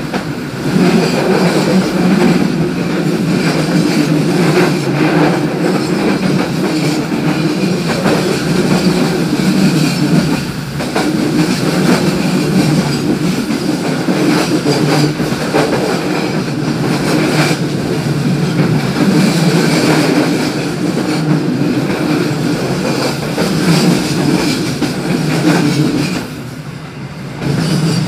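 Train running along the track, heard from the rear of the last carriage: a steady noise of wheels on rail with occasional clacks over rail joints. It eases briefly about ten seconds in and again near the end.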